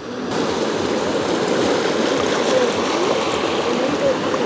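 Shallow sea water washing in at the shoreline: a steady rushing wash of small waves that rises in level just after the start.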